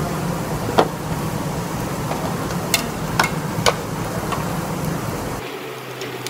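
Tableware clicking: about four sharp clicks of chopsticks and plates, over a steady restaurant background hum that thins out near the end.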